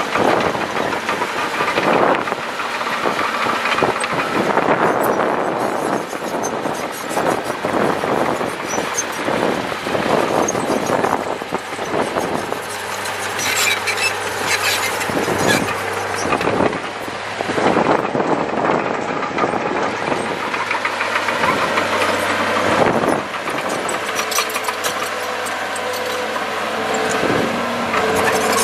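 Komatsu D37P crawler bulldozer's diesel engine running steadily while working, with frequent clanks and rattles from its steel tracks and blade as it pushes dirt.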